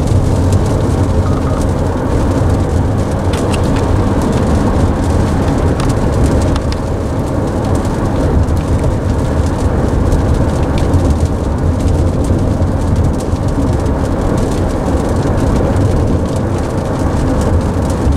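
Steady rain on the roof and windshield of a moving car, mixed with a low tyre and road rumble, heard from inside the cabin.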